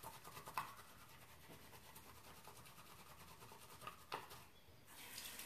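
Faint scrubbing of a wet makeup brush's bristles against a brush-cleaning mat in a sink, with two soft clicks, near the start and about four seconds in.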